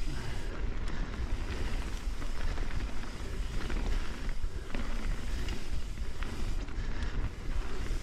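Mountain bike descending fast on a dirt singletrack: wind rumbling on the microphone over tyres rolling on dirt, with scattered short rattles and clicks from the bike.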